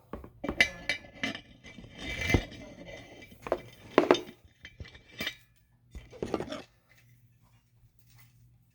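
Metal tools and faucet fittings being handled, with a string of sharp clinks and knocks that stops about two-thirds of the way through.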